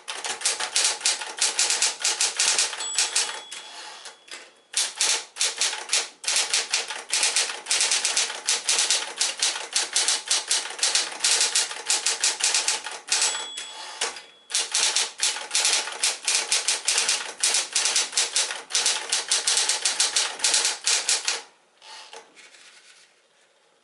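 Smith-Corona Electra 120 electric typewriter typing at a fast, steady pace, running smoothly on a freshly replaced drive belt. A short bell ding twice, each followed by a brief pause in the keystrokes, fits the margin bell and carriage return. Typing stops about two seconds before the end, leaving only a faint hum.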